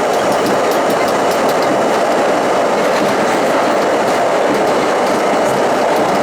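R32 subway train running at speed, a steady rolling rumble of steel wheels on rail with light clicks over the rail joints.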